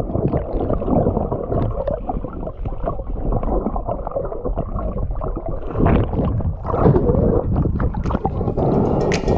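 Muffled underwater gurgling and rumbling picked up by a camera held underwater, with many small clicks and knocks scattered through it.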